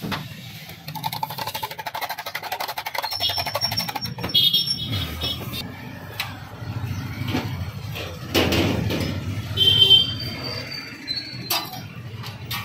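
Street-stall kitchen noise: a metal spoon clicking fast against a steel mug as sauce is stirred, over a steady hum of traffic, with a louder rush of noise a little past the middle and music in the background.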